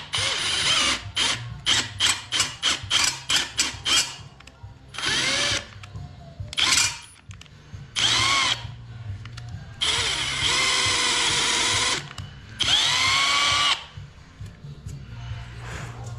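Milwaukee Fuel cordless drill boring into a cast-iron cylinder head, drilling along a crack to prepare it for cold metal stitching. It starts with a quick string of short trigger bursts, then runs in several longer bursts of about a second or two, each whining up in pitch as the drill speeds up.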